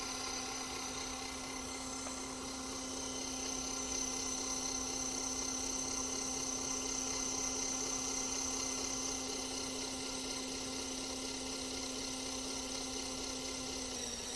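Small electric suction pump running with a steady hum and a high whine above it, slightly louder for a few seconds in the middle, as it draws water through an inkjet print head to flush out the nozzles.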